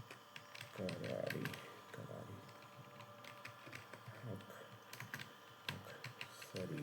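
Computer keyboard being typed on: a fast, irregular run of key clicks, with a few short bits of quiet murmured speech mixed in.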